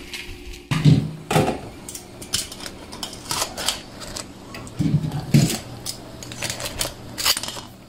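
Kitchen clatter: scattered clicks and knocks of cookware and utensils, with a couple of heavier knocks about a second in and again about five seconds in.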